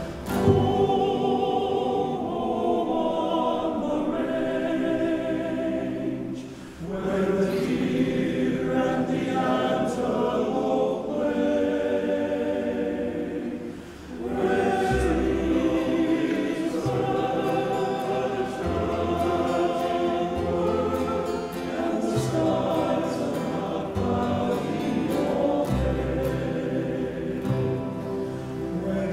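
Background music: a choir singing slow, sustained phrases over low held bass notes, with short breaks between phrases about seven and fourteen seconds in.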